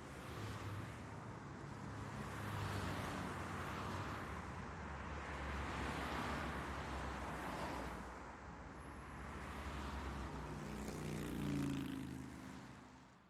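Road traffic: vehicles passing one after another, the rushing noise swelling three times, with an engine hum coming up near the end before the sound fades out.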